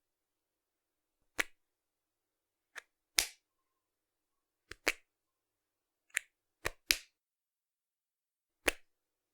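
Sharpie marker's plastic cap popping off and snapping back on, over and over: sharp clicks a second or so apart, some coming in quick pairs.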